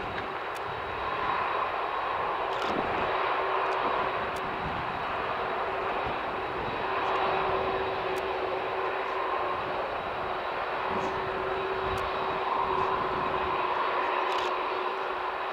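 Boeing 767-400's General Electric CF6 turbofan engines running at low power while the airliner lines up for takeoff: a steady jet whine over a broad rushing hum, swelling and easing a little but with no takeoff spool-up.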